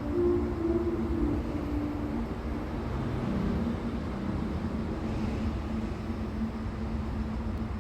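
Steady low outdoor rumble and hiss, with a faint steady hum; the last held notes of music fade out during the first second or two.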